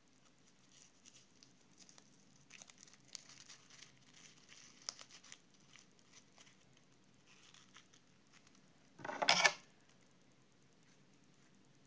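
Faint rustling and small clicks of paper and a small plastic bag being handled, then about nine seconds in one short, louder crunch of scissors cutting through paper and plastic.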